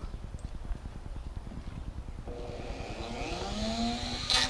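Dremel rotary tool running, its motor whine rising in pitch about halfway through, then turning louder and rougher near the end as it grinds, trimming the edge of a cut-out opening in a toolbox.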